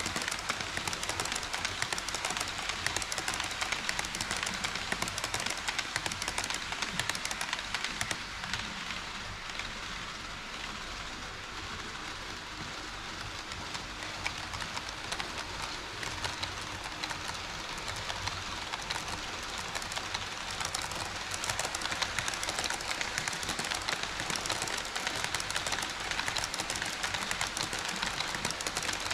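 HO scale model train running on KATO Unitrack: a steady rolling rattle of small wheels on track, with dense fine clicking. It eases a little for a few seconds partway through.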